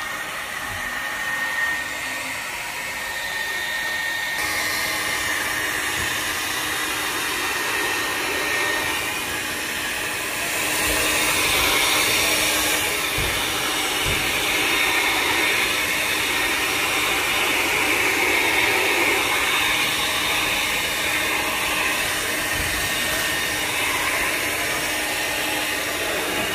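Small handheld electric hair dryer running continuously: a steady rush of blown air with a faint motor hum, getting louder from about ten seconds in.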